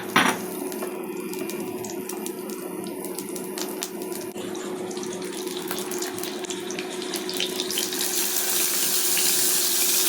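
Marinated fish pieces frying in hot oil: a steady sizzle with scattered crackling pops, getting louder and hissier over the last couple of seconds. A sharp clank right at the start, and a steady low hum underneath.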